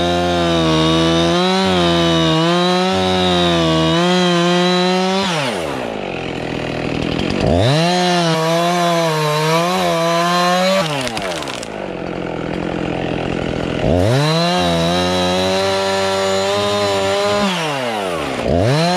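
Chainsaw cutting through apple tree limbs in three long runs, its pitch sagging and wavering as the chain bites into the wood. Between cuts the motor winds down in a falling whine, and it revs up again for the next cut, with a fourth run starting near the end.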